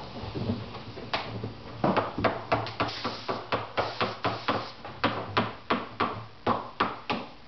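A small hammer tapping repeatedly on a fiberglass mold to loosen the molded nacelle from it. A few scattered taps come first, then a steady run of sharp taps at about three to four a second from about two seconds in.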